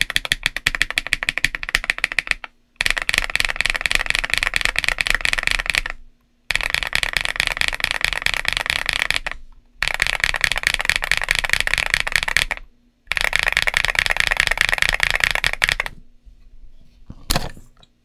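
Fast typing on a GAS67 mechanical keyboard with MMD Princess Tactile 60 g switches and SA-profile ABS keycaps: rapid key clacks in runs of about three seconds, with brief pauses between runs. Near the end the typing stops, and there is then a single sharper click.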